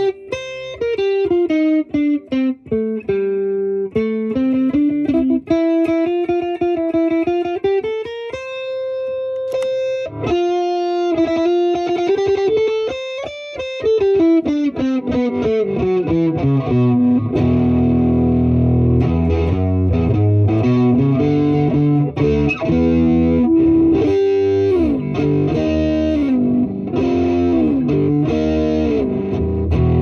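Electric guitar played through a Wampler Tumnus Deluxe overdrive pedal. It starts as clean single-note melody lines with the pedal off. About halfway through the pedal is switched on, and the playing turns thicker and fuller with overdrive.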